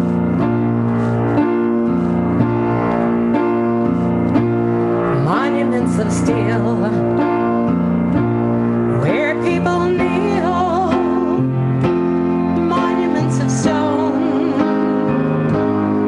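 Instrumental song introduction led by piano: sustained chords over a bass line that steps to a new note about once a second, with a wavering melody line above.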